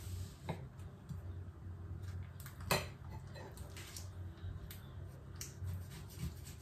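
Knife slicing through a baked pizza on a cutting board: faint scraping with a few light clicks of the blade against the board, the sharpest a little under three seconds in. A low steady hum runs underneath.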